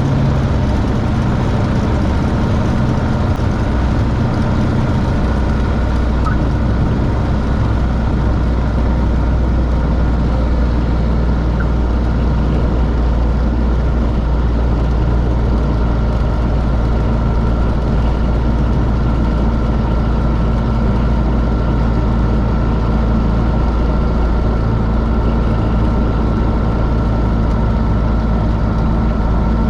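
Rotax 912 iS engine and propeller of a Van's RV-12iS light aircraft running steadily with a loud, even drone; the low part of the drone shifts about five seconds in.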